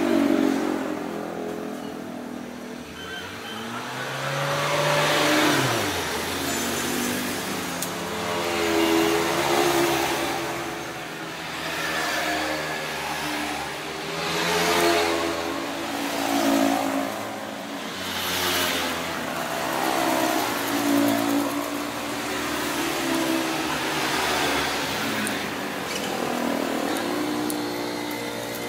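Motor vehicle engines passing by, their pitch rising and falling again and again every couple of seconds.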